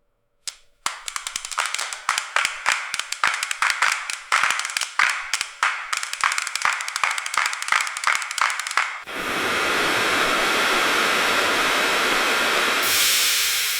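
Dental chair reclining: a run of uneven mechanical clicks for about eight seconds, then a steady hiss that brightens near the end.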